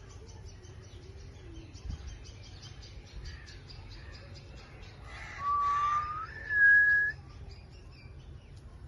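Indian ringneck and Alexandrine parrots chirping in quick, high runs. A little past halfway come two loud, clear whistles: the first rises slightly, the second is higher and held steady.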